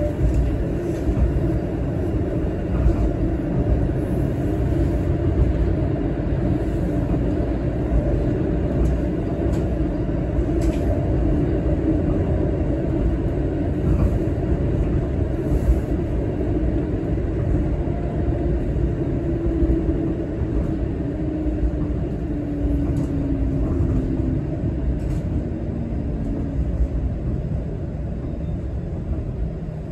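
Interior running noise of a TTC Flexity Outlook streetcar travelling along its track: a steady low rumble with faint clicks. Through the second half a motor tone slides steadily downward as the car slows toward a stop.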